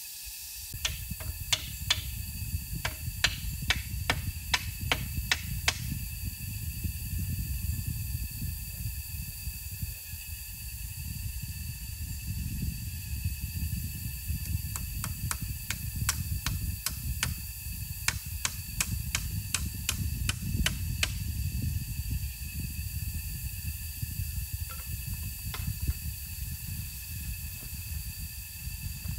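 Two runs of sharp knocks, about two to three a second, as a tool strikes wood: one starting about a second in and another in the middle. Under them is a steady low rumble and a faint steady high hum.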